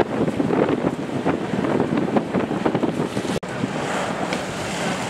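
Wind buffeting the microphone over the wash of the sea aboard a sailboat under way, gusty at first. A brief break in the sound about three and a half seconds in, after which the wind and water noise is steadier.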